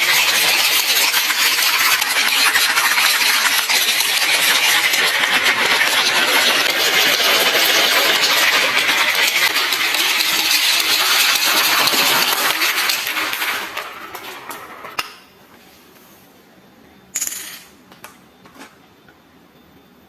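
Many glass marbles rolling and clattering down a wooden marble run in a dense continuous rattle that dies away about two-thirds of the way through, followed by a couple of single marble clicks.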